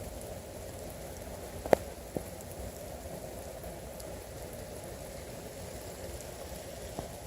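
Freezing rain pattering steadily, with one sharp tick a little under two seconds in that is the loudest sound, a fainter one just after, and another faint one near the end.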